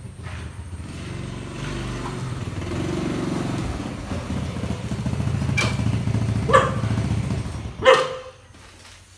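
Small underbone motorbike engine running as the bike rides in and pulls up, getting louder as it comes closer, then switched off about eight seconds in. Three short sharp sounds come over the engine in the last few seconds, the loudest just as the engine stops.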